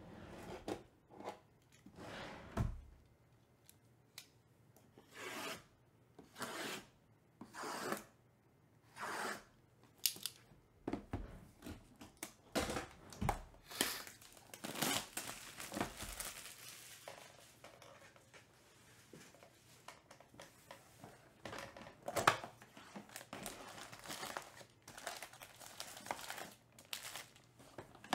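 Plastic shrink-wrap being torn and crinkled off sealed Topps Pristine baseball card boxes, with cardboard box flaps being opened: a long series of short rips and rustles with gaps between them.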